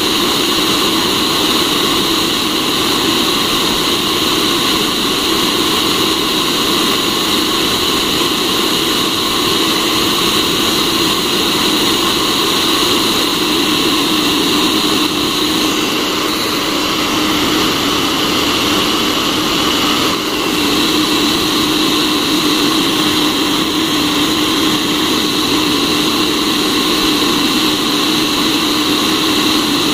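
Hot-air fluid-bed coffee roaster (Cafemasy) running, its blower making a steady rushing whir as it tosses green coffee beans around the glass roasting chamber. The beans are still pale, which marks the early drying stage of the roast.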